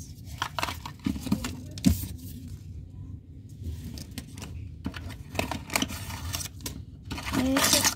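Small plastic toys and packaging being handled: scattered clicks and rustling, with some tearing.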